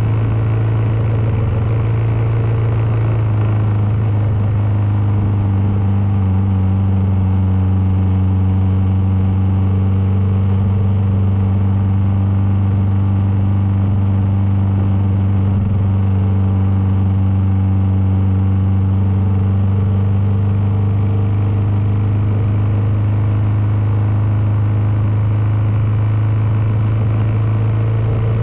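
Kawasaki KLR650's single-cylinder four-stroke engine running at a steady cruise, a constant low drone that holds one pitch throughout.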